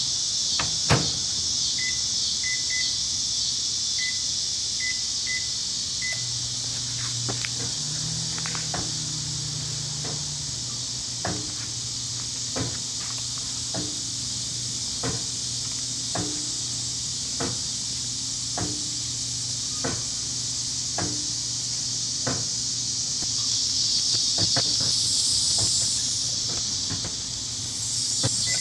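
Microwave oven being set and run with a MacBook Pro laptop inside: a series of short keypad beeps, then a steady hum with a hiss, and a regular click about every second and a quarter through the middle. The hiss grows louder a few seconds before the end.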